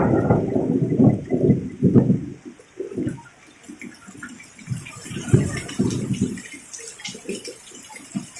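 Thunder rumbling and dying away over the first two seconds or so, followed by heavy rain and splashing water coming and going in uneven gusts.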